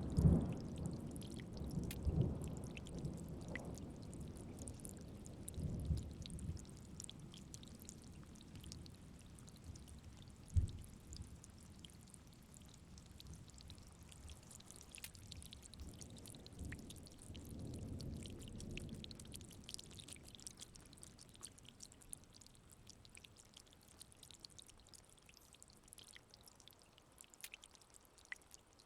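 Rain falling as scattered drips and patter, with low thunder rumbling that fades over the first few seconds and swells again about two-thirds of the way through.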